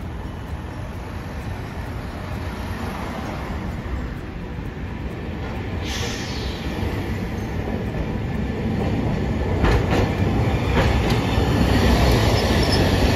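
Hiroden streetcar approaching and passing close by, its wheels rumbling on the street track and growing steadily louder, with a couple of clacks over rail joints and a faint high wheel squeal near the end. A car drives past about six seconds in.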